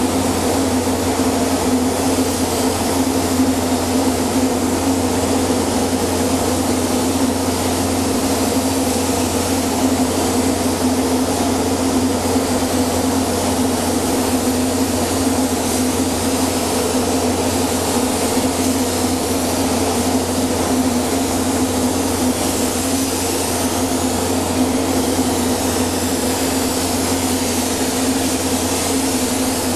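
Steady hiss of a compressed-air paint spray gun spraying a boat hull, over the constant hum of the booth's air-moving machinery.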